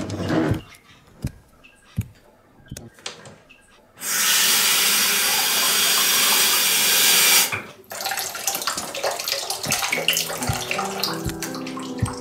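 Water from a tap running into a sink for about three and a half seconds, starting and stopping abruptly. Before and after it come scattered small clicks and knocks.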